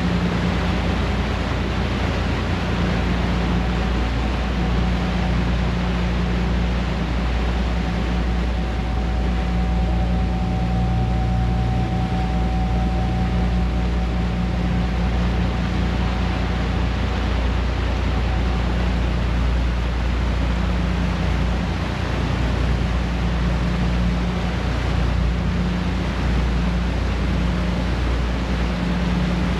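Passenger ferry's engines running steadily at cruising speed, a low hum, under the rushing of the wake churning behind the stern. A faint steady whine sits over it through the first half.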